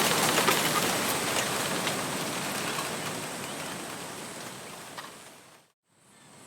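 Wind rushing through a bamboo grove, with rustling leaves and a few faint clicks of the stems knocking. It fades out steadily to a brief silence about five and a half seconds in, then swells back in.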